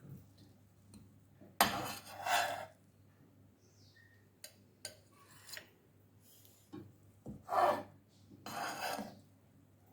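A kitchen utensil scraping and rubbing against dishware in several short strokes, with a few light clicks between them, as sliced rolled omelette is moved onto a plate.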